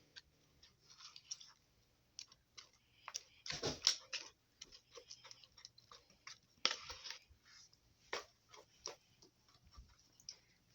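Spoon stirring slime in a plastic container as activator is mixed in: irregular clicks of the spoon against the container and soft, sticky squishes, with a couple of louder scrapes along the way.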